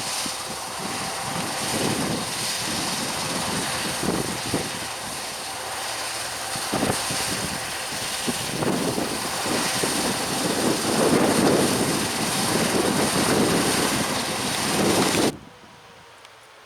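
Heavy harvest machinery running at work: a steady engine drone under loud rushing noise, with a few surges. It cuts off suddenly near the end, leaving only faint background.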